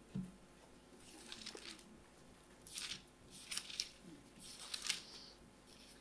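Pages of a Bible being leafed through at a lectern: a soft bump at the start, then four or five short, faint paper rustles and flicks as the passage in Luke 6 is looked up.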